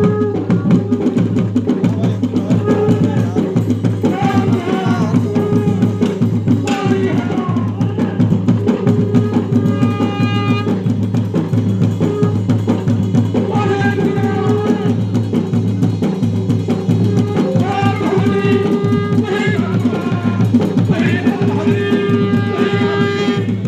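Garhwali jagar ritual music: fast, steady drumming with a voice singing in phrases over it, some notes held long.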